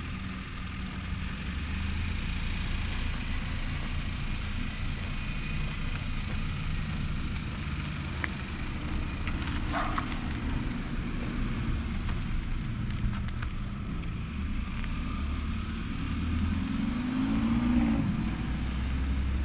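Hyundai Elantra GT N Line running with its newly fitted AFE Takeda cold air intake, a steady low rumble, with the engine note rising briefly near the end.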